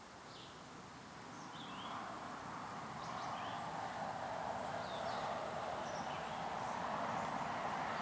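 Faint outdoor ambience: a steady hiss that swells over the first few seconds and then holds, with a few faint, short, high chirps.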